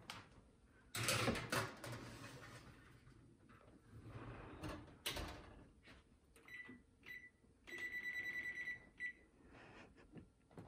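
A baking tray goes into an electric oven with a loud clatter about a second in, and a thump follows about five seconds in. Then the oven's control panel beeps as its buttons are pressed: three short beeps and then one long steady beep of about a second and a half.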